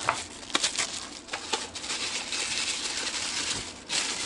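Tissue-paper wrapping and a thin plastic packing tray rustling and crinkling as hands unwrap a boxed toy train car.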